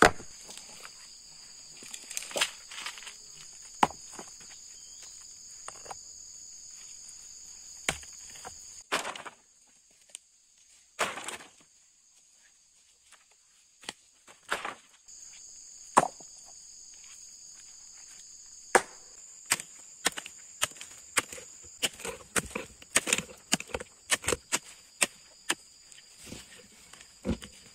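Steady high insect chorus that drops out for a few seconds near the middle. Over it come scattered sharp knocks as rocks are lifted and moved, then in the second half a quick run of strikes as a small hoe chops into the soil.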